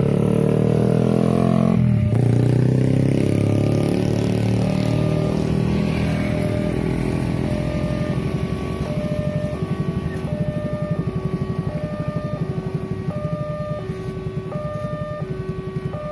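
Level-crossing alarm sounding a repeating electronic chime of alternating high and low tones, over motorcycle engines. One motorcycle passes close about two seconds in, its engine note falling away, and an engine runs on with a rapid low pulsing.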